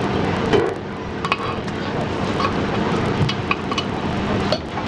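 Utensils and dishes clinking in a few sharp ticks over a steady bed of busy street noise.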